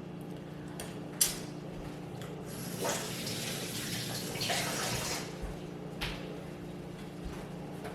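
Sauerkraut being lifted out and added to a bowl: a click about a second in, then a few seconds of wet, splashy noise from the brine-soaked cabbage.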